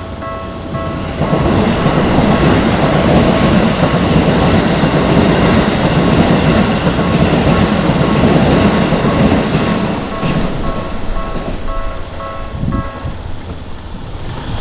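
Keisei Main Line train passing through a level crossing. A loud rumble of wheels on rail starts about a second in and fades away after about ten seconds. The crossing's electronic warning bell dings over and over, about twice a second, and stops near the end.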